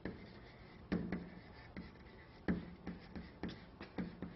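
Faint, irregular sharp knocks, about ten in four seconds, each with a short low ring.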